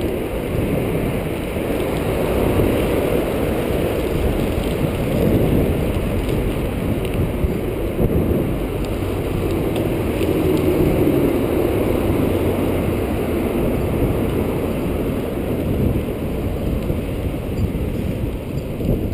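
Wind rushing over the microphone of a moving bicycle, a steady low rumble that swells and eases, with the tyres rolling on pavement beneath it.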